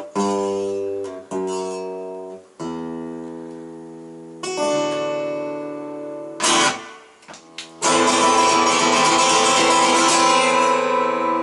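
Acoustic guitar playing with no singing: chords struck one at a time and left to ring, about five of them, then steady strumming from about eight seconds in.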